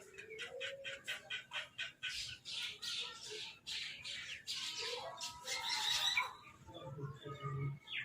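Crows calling: a quick run of short calls, then several louder, harsh caws from about two seconds in.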